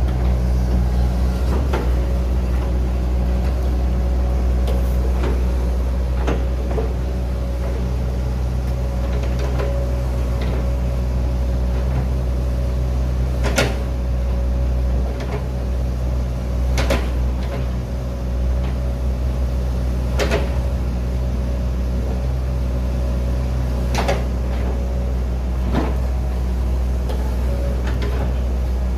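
Hitachi ZX110MF excavator's diesel engine running steadily, with sharp knocks every few seconds.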